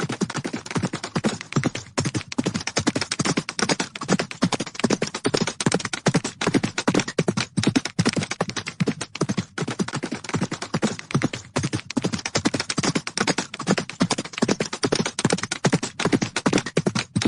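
Horses' hooves galloping: a rapid, continuous drumming of thuds on the ground.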